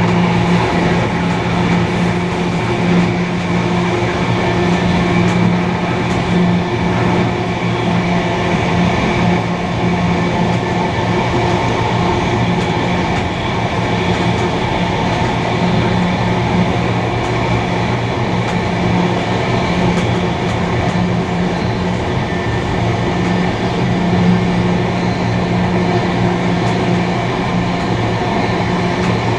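Steam-hauled passenger train running steadily, a continuous rolling rumble with a low, unchanging hum.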